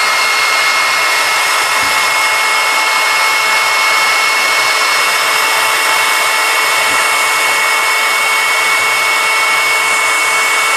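Electric heat gun running steadily: the rush of its fan blowing air, with a steady high whine over it.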